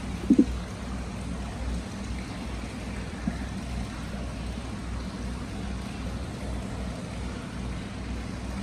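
Hot-spring water flowing steadily into an indoor tiled bath, a continuous rush of water with a low rumble, from the bath's free-flowing spring. A couple of brief plops or splashes stand out, the loudest about a third of a second in.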